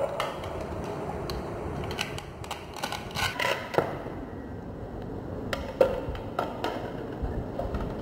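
Scattered plastic clicks and taps as toy fruit pieces and a plastic toy knife are handled on a plastic cutting board and wooden table, with the scrape of velcro-joined toy fruit halves being cut apart. The clicks come in two busier runs, one just before halfway and one about three quarters of the way through.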